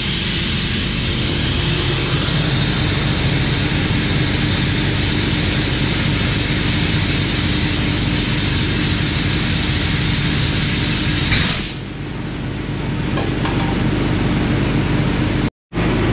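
Compressed air hissing loudly as a semi truck drive tire is aired up through its air chuck to seat the bead, over the steady hum of an air compressor. The hiss cuts off abruptly about eleven seconds in, leaving the compressor running.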